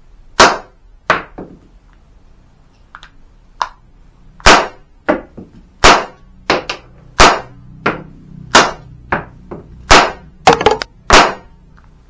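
A!CTION C96 Red9 cap-firing model gun being test-fired: a string of sharp shots, some coming about half a second apart and others with a second or more between them, with weaker clicks in between.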